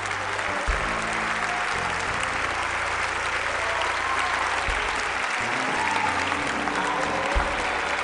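Congregation applauding steadily, with instrumental church music playing sustained low notes that change every second or two underneath.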